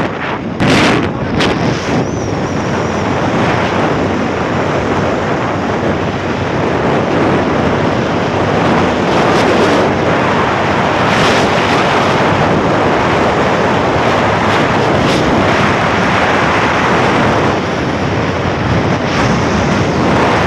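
Waterfall: a steady rush of falling water, with a few knocks about a second in.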